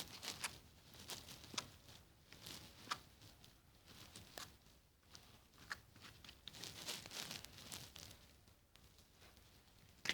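Soft rustling, crinkling and scattered light clicks of objects being handled, with a longer stretch of rustling a little past the middle.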